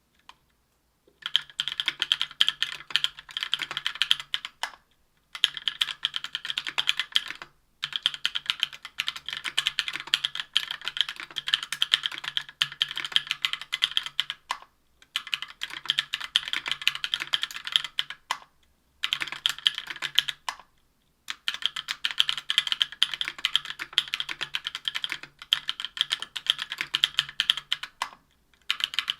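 Mechanical keyboard typing on stock, unlubricated Durock Cherry Blossom 65 g linear switches in an aluminium Tofu 60% case and plate, with GMK keycaps. Fast runs of keystrokes start about a second in and are broken by brief pauses every few seconds.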